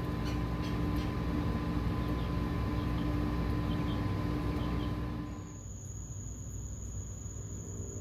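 Steady hum of the Furrion 10 cu ft 12-volt refrigerator's compressor running while it draws about 6 amps. About five and a half seconds in it gives way to a steady high trill of crickets.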